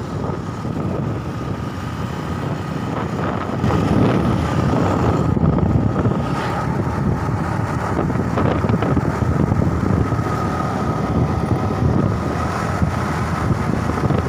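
Wind rushing over the microphone of a moving motorcycle, with engine and road noise underneath and a faint steady whine; it gets louder about four seconds in.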